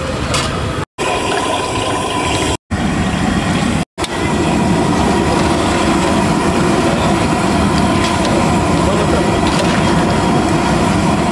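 Battered onion fritters deep-frying in a large kadai of hot oil, a steady dense sizzling, with a few short dropouts in the first four seconds.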